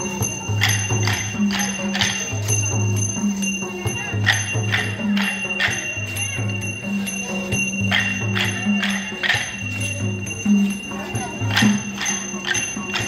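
Dance percussion: a low drum beating a steady repeating pattern with ringing cymbal-like strikes, and sharp clacks of many wooden sticks being struck in time by the dancers.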